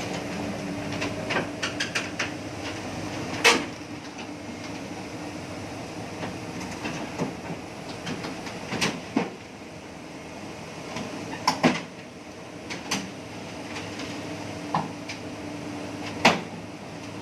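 Excavator engine running steadily, with sharp metal clanks and knocks every few seconds, four of them louder than the rest.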